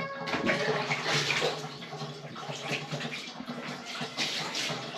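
Shower water running and splashing as a long-haired cat is bathed, the flow surging unevenly.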